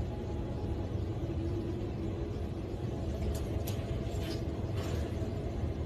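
Steady low rumble, with a few faint light taps in the second half.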